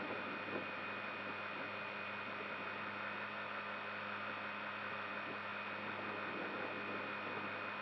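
Steady hiss with a low hum and a thin, high steady tone, with no distinct events; no running motors or impacts stand out.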